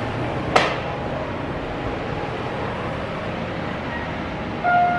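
Steady indoor background noise with one sharp click about half a second in.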